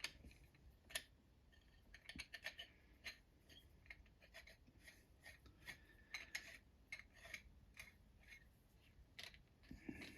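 Faint, irregular small clicks and scrapes of a ground-down plastic connector being screwed by hand into a metal shelf post.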